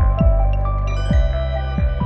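Background music: short struck melody notes over a sustained pad and a low thumping beat.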